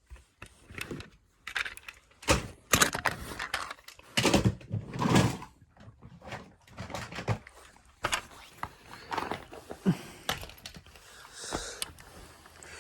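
Toy cars being handled and moved about, giving irregular clicks, knocks and short rattles, busiest a few seconds in.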